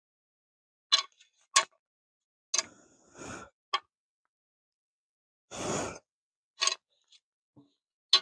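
Scattered sharp metal clicks and clinks, about five, from bolts and a steel flywheel being handled, with two short noisy bursts of hiss or rustle between them.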